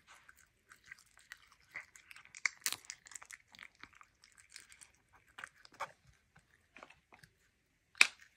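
Serval chewing and biting raw meat held in a hand: an irregular run of small crunching, clicking bites, with one much louder sharp snap near the end.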